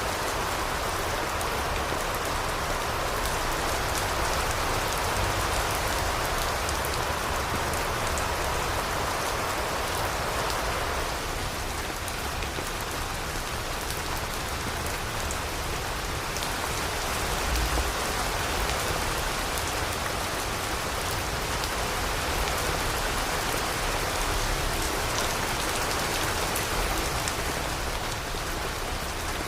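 Steady rain falling: a dense even hiss of rainfall with many individual drop ticks through it.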